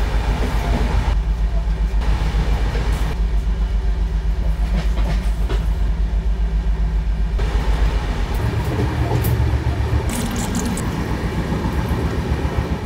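Passenger train coach running along the track, heard from inside the coach near the door: a loud, steady rumble and rattle of the moving carriage, whose low rumble changes tone about eight seconds in.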